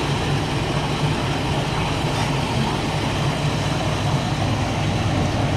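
Horizontal glass washing machine running steadily, with its conveyor, washing brushes, water pump and drying fans all on, giving an even low hum under a constant rush of noise.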